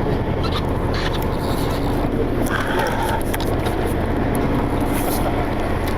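Sport-fishing charter boat's engine running steadily, a constant low drone.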